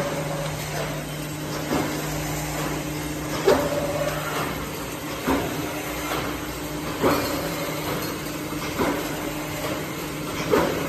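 Brick force wire mesh machine running: a steady motor hum with a sharp metallic clank about every 1.8 seconds, the machine's repeating work cycle.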